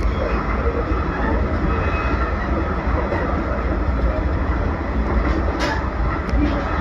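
JR Central Limited Express Shinano, a 383 series electric train, running along the line: a steady low rumble of wheels on rail, with two short clicks near the end.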